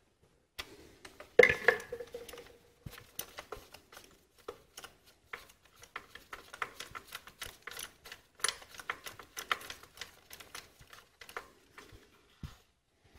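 Ratchet clicking in short, irregular runs while a spark plug is loosened with a spark plug socket and extension, along with light metal clinks of the tools.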